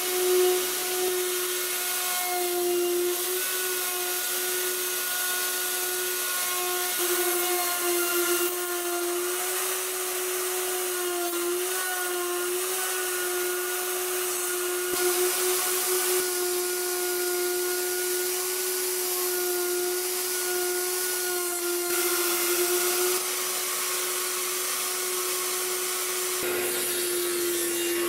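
Electric circular saw running steadily as it cuts lengthwise along a heavy wooden beam: a constant motor whine that sags slightly in pitch now and then under the load, over a steady hiss of sawing.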